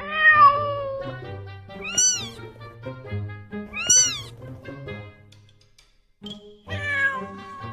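Cat meowing over background music: a long falling meow at the start, two short high meows that rise and fall about two and four seconds in, and another falling meow near the end.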